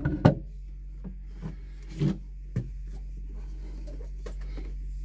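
Handling noises from fitting a PVC vent filter housing back among the hoses: a few short knocks and rubs of plastic, the loudest right at the start and smaller ones about a second and a half, two and two and a half seconds in, over a steady low hum.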